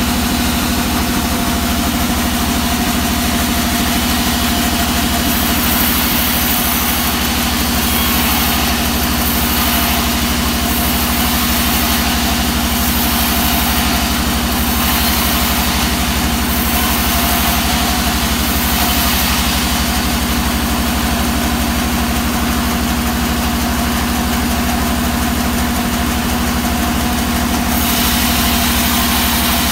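Vertical band sawmill running steadily with no log in the cut, a constant machine hum with a higher hiss that comes and goes through the middle.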